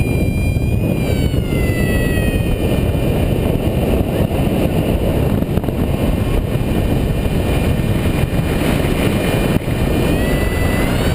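Paraglider flight: a loud, steady rush of airflow buffeting the microphone. Over it runs a high continuous tone that slides down in pitch about a second in and climbs back up near the end.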